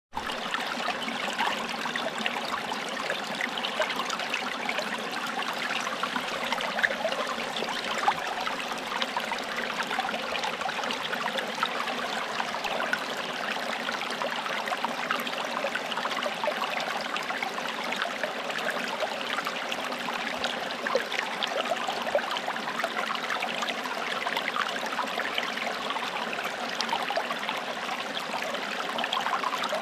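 Forest stream flowing steadily over stones, with a continuous babbling and trickling of water.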